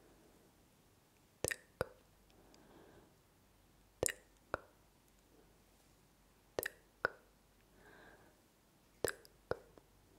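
ASMR 'tk-tk' mouth sounds: sharp tongue clicks made close to the microphones, in pairs, four pairs about two and a half seconds apart.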